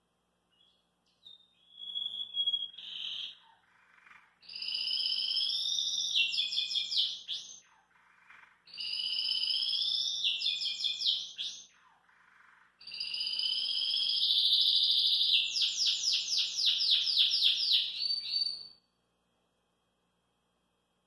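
Domestic canary (Belgian canary) singing in three long phrases of rolling warble, each closing in rapid repeated notes. The last and longest phrase ends in a fast trill, after which the song stops.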